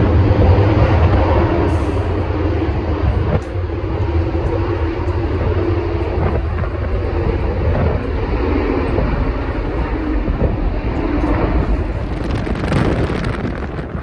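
Jet airliner's engines, a loud deep rumble that is strongest at first and slowly fades over the seconds.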